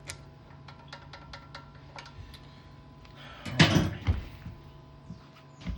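Light metallic clicks and clinks of hand tools on a small engine's valve rocker arm as it is adjusted, with a louder rattling clatter about three and a half seconds in and a short thump near the end. A low steady hum underlies it.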